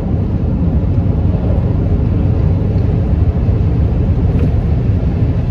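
Steady low rumble of road and engine noise inside the cab of a moving truck.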